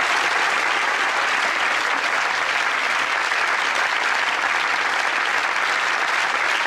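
Studio audience applauding steadily at the end of a sitcom episode.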